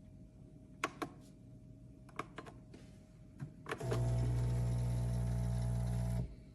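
A few light plastic clicks, then a steady electric pump hum from the Cuisinart single-serve coffee maker that runs for about two seconds and cuts off suddenly.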